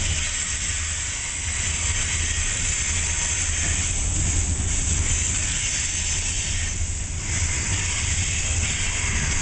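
Loaded open hopper cars of a rock freight train rolling past: a steady wheel-on-rail hiss over a low rumble, even and unbroken.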